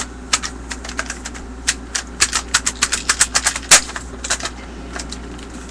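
Plastic clicks and clacks of an airsoft shotgun with a broken handle being handled and worked: an irregular run of sharp clicks, coming fast in the middle, with one louder clack just before the last third.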